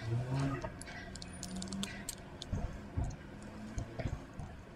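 Small plastic model-kit parts being handled and pressed together: a scatter of light, irregular clicks and ticks with a few soft knocks.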